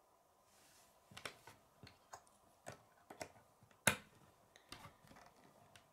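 K'nex plastic rods and connectors clicking and tapping as they are handled and pressed together on a wooden table: scattered sharp clicks, the loudest about four seconds in.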